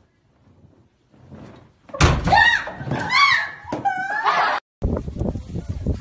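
A sudden loud thump about two seconds in, followed by high, wavering shrieks from a person. They cut off abruptly a little after four and a half seconds, and another loud, busy passage follows.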